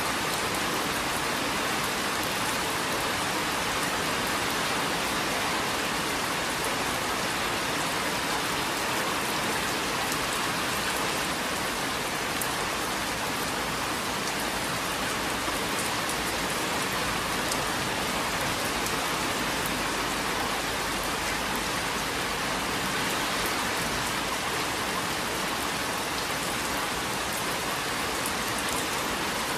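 Steady rain: an even hiss of rainfall with scattered drops ticking through it.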